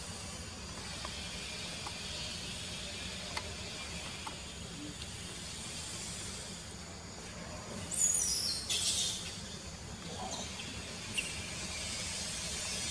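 Steady outdoor background hiss with a few faint clicks. About eight seconds in comes a brief high call falling in pitch, followed at once by a short burst of hiss.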